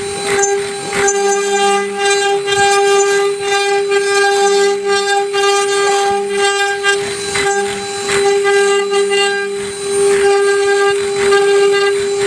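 CNC router spindle running with a steady, high whine, its tone shifting a little as the bit cuts into the wood.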